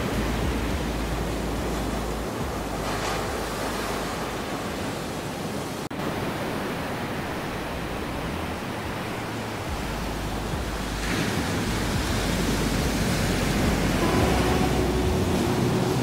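Ocean surf breaking and washing up a beach: a continuous rush of waves that swells and eases, with a split-second dropout about six seconds in. Faint held tones come in under the surf near the end.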